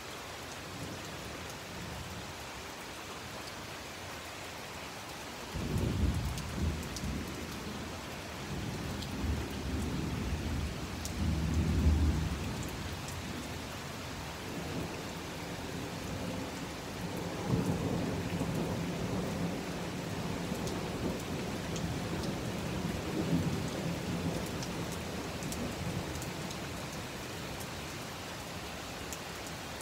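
Heavy rain falling steadily. A few seconds in, a long peal of thunder breaks in and rumbles in several surges, loudest near the middle, then dies away toward the end.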